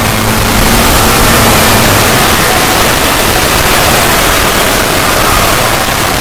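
Loud, steady wall of noise from low to high pitches, with faint held tones drifting through it: an edited 'void' sound effect.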